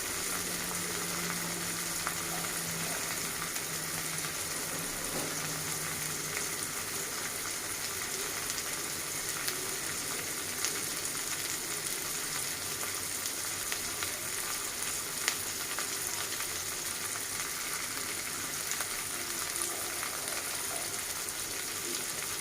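Hilsa fish pieces shallow-frying in hot oil in a pan: a steady sizzle with a few small pops, the fish lightly browning.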